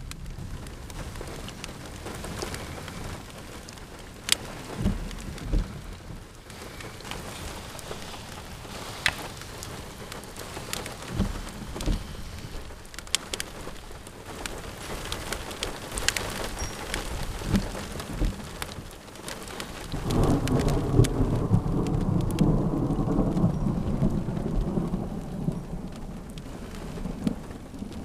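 Steady rain with many close raindrops ticking sharply. About two-thirds of the way through, a long roll of thunder sets in suddenly, rumbling loudly for several seconds before easing.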